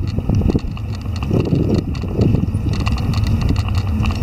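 Low rumble of wind and handling on a moving camera's microphone, with many irregular light ticks and taps over it.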